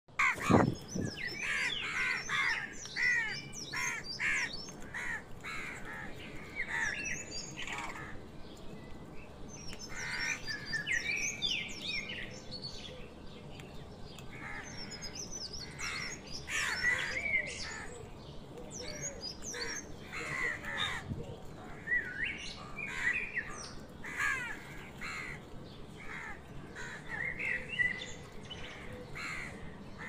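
Crows cawing over and over, short harsh calls every second or so, mixed with the chirping of smaller birds. A sharp knock right at the start.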